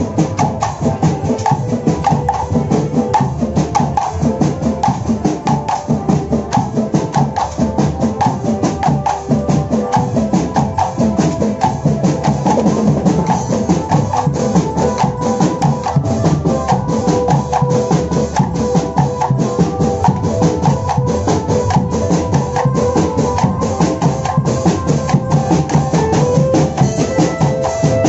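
Parade music led by drums and percussion, with a fast, steady beat and a melody line over it.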